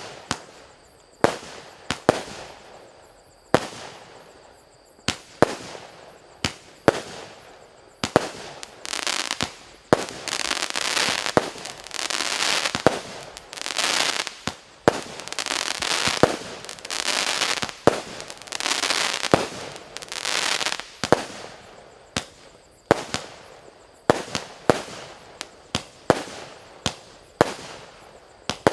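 A 49-shot consumer firework cake (Piroff "Shapito") firing in sequence, with sharp launch and burst bangs roughly once a second. Through the middle stretch each shot breaks into a hissing spray lasting about a second before the sharp single bangs return near the end.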